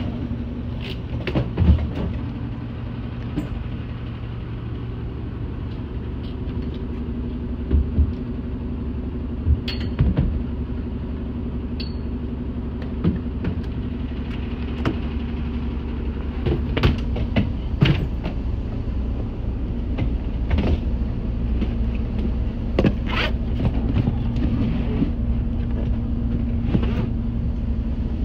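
Rental car shuttle bus idling with a steady low hum, while rolling suitcases and hard luggage cases are lifted aboard and set down. This gives scattered knocks and clatter, the loudest of them just past halfway.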